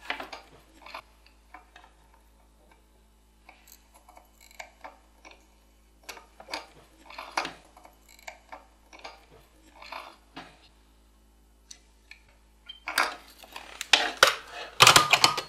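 Scattered small clicks and light metallic clinks of tools and a circuit board being handled while resistors are hand-soldered, with a denser, louder clatter of clicks near the end.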